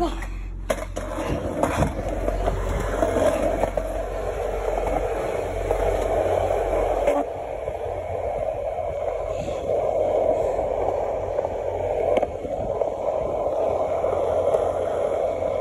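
Skateboard wheels rolling on concrete with a steady grinding rumble. There are a few sharp clicks as the wheels cross the joints between the slabs.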